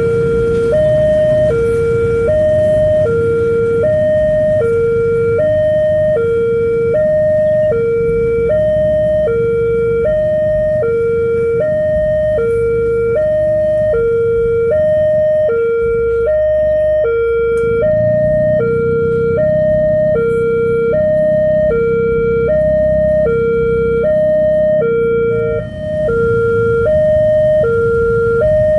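The new electronic two-tone siren of an Indonesian railway level crossing, alternating between a high and a low tone about once a second without pause. It is the warning that a train is approaching the crossing. A low engine-like rumble runs underneath and grows heavier about two-thirds of the way in.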